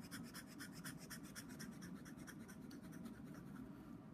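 Quick back-and-forth shading strokes of a drawing tool scratching on paper, faint, about seven strokes a second, stopping about three and a half seconds in.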